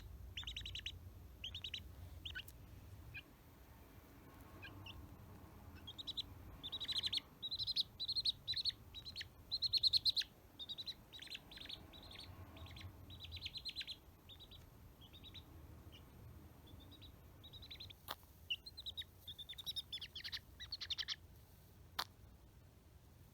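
Baby domestic chick peeping: runs of short, high chirps that come in bursts with brief lulls and die away near the end. Two short clicks are heard late on.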